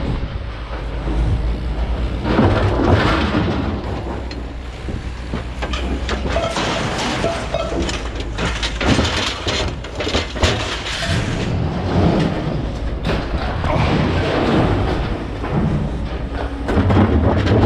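Scrap metal clanking and thudding as it is tipped and handled, over a steady low engine rumble.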